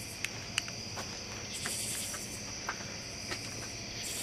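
Crickets chirping steadily in an unbroken trill, with a few faint scattered clicks.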